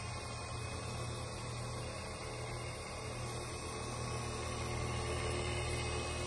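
Electric coil-winding machine running steadily with a low hum, spinning a Telecaster pickup bobbin as it winds on magnet wire, the traverse arm guiding the wire.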